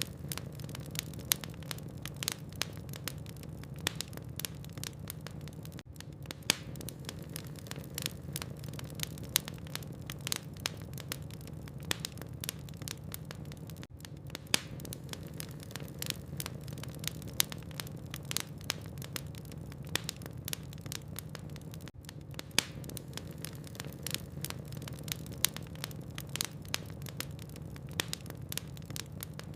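Burning logs in a fireplace crackling: frequent, irregular sharp pops and snaps over a steady low hum.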